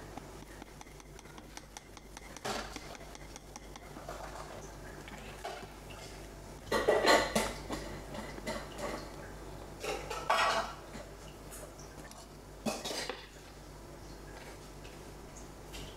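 Metal kitchen utensils clinking and scraping against cookware in several short bursts, loudest about seven and ten seconds in.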